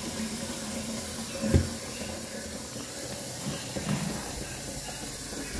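Kitchen faucet running steadily into a plastic pitcher, filling it with cold water, with a soft thump about a second and a half in and a few light knocks later.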